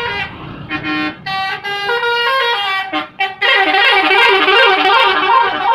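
Indonesian bus 'telolet' musical horn playing a tune of short stepped notes, then from about three and a half seconds in a louder run of overlapping, warbling horn tones.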